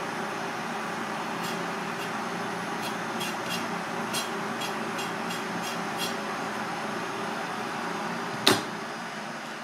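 Kitchen knife cutting through the shell of a raw giant tiger prawn on a plastic cutting board: a string of small crisp clicks, then a single sharp knock near the end, over a steady background noise.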